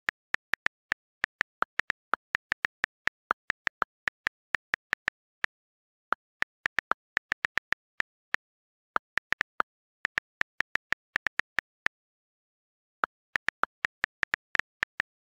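iPhone on-screen keyboard key-click sounds as a message is typed: quick, irregular runs of short, sharp clicks with brief pauses between bursts, against silence.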